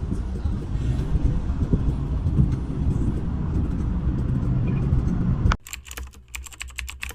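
Dense low rumble of a car in motion, heard from inside, that cuts off abruptly near the end. It gives way to rapid clicking of typing on a computer keyboard.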